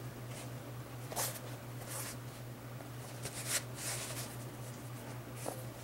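A few brief rustling and handling noises, like a shoe, box or paper being moved about, over a steady low hum.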